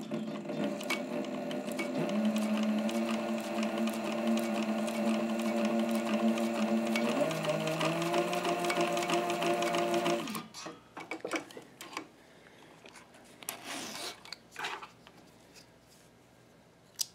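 Cobra Class 26 cylinder-arm leather sewing machine stitching thin 2 oz leather: its motor whine runs with a steady rhythmic ticking of the needle, stepping up in pitch about seven seconds in as it speeds up. It stops about ten seconds in, followed by a few scattered clicks and rustles as the leather and thread are pulled free.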